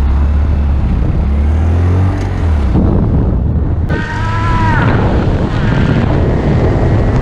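Honda Grom's 125 cc single-cylinder engine running while riding, with wind noise on the camera's built-in microphone. About four seconds in comes a short, high squeak that bends in pitch, with a fainter one just after.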